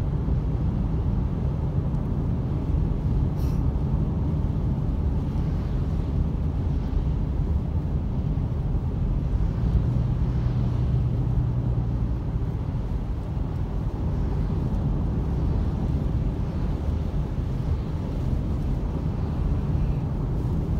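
Steady in-cabin road noise of a car driving on a rain-soaked road: low engine and tyre rumble with the hiss of wet pavement and rain on the windshield.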